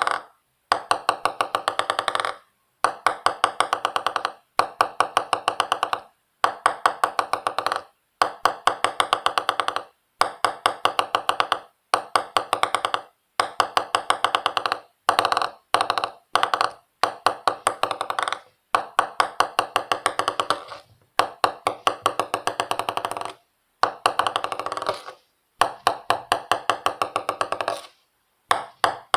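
Ping pong ball bouncing on a hard surface, dropped again and again. Each drop gives a run of hollow clicks that come faster and fainter as the ball settles, then a short pause before the next drop.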